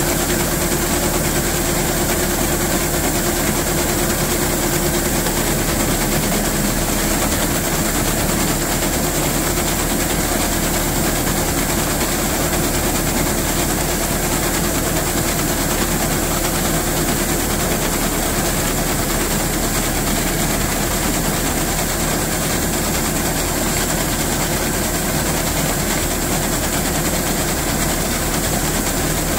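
Rice combine harvester running steadily as its unloading auger conveys threshed paddy rice out through the spout: a constant machine noise with a steady hum.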